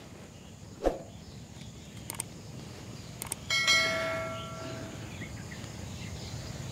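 Subscribe-button sound effect: a few quick clicks, then a bell chime about three and a half seconds in that rings and fades over about a second and a half, over steady outdoor background noise.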